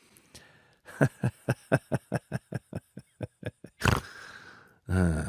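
Kitten lapping milk from a bowl: quick, regular wet clicks of the tongue, about five a second, then one louder click about four seconds in. A person's voice starts near the end.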